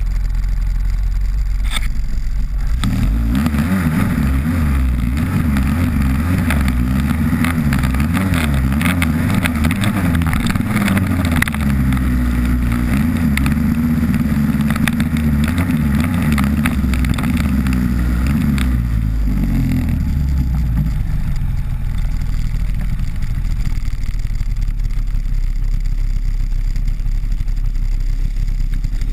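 Polaris snowmobile engine running. About three seconds in it picks up and rides along with its pitch wavering with the throttle. Around two-thirds of the way through it drops back to a lower, steadier run.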